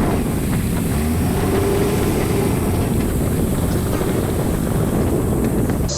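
Four-wheel drive travelling along a rough dirt track, with engine and tyre rumble under steady wind noise on the microphone.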